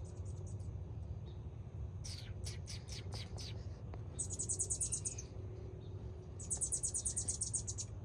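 Hummingbird calling: a run of about six sharp chips about two seconds in, then two fast, high-pitched chattering trills of about a second each, one about four seconds in and one near the end.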